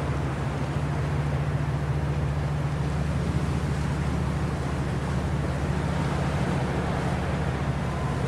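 Boat engine running steadily, a low even drone over a steady hiss.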